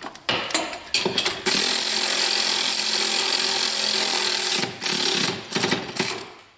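Cordless power tool running down the retaining screws of a newly fitted intercooler: a few short clicks, then the motor runs steadily for about three seconds, followed by a few short bursts before it stops near the end.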